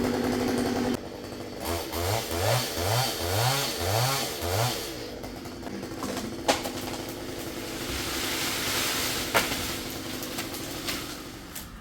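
Two-stroke chainsaw held at high revs for about a second, then dropping off. It is blipped through about five quick revs and settles to a steadier, lower running. Two sharp knocks stand out over it, one past the middle and one later.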